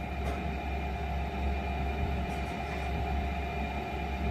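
Buck 81 wood stove's blower fan running steadily: a low hum with a faint constant whine over it.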